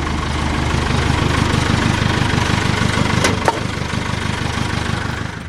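Farm tractor engine running steadily at low revs, with two light clicks a little over three seconds in.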